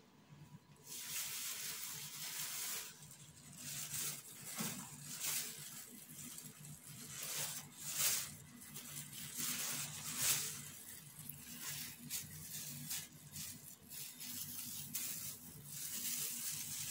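Thin plastic sheeting rustling and crinkling as it is handled over sheets of bread dough, with irregular crackles; a faint low hum underneath.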